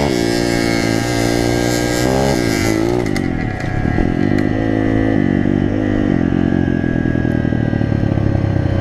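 Pit bike engine heard from on board while riding, its pitch climbing over the first two seconds, dipping and rising again around the third second, then running at a fairly steady pitch.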